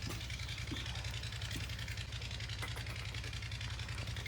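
An engine idling steadily: a low, even rumble with a fast pulse, and a few faint clicks.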